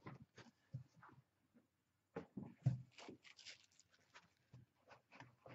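Handling noise from a cardboard box with foam packing as parts are lifted out: scattered rustling and light clicks, with one sharper knock about two and a half seconds in.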